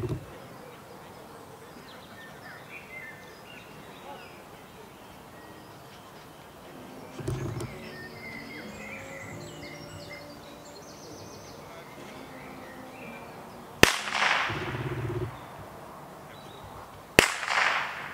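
Two blank gunshots about three seconds apart, each a sharp crack followed by an echo dying away over about a second. They are the gun-steadiness test fired during heelwork in a dog obedience trial.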